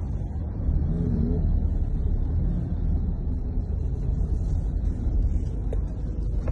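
Steady low rumble of vehicle and road noise, heard from a car on the road.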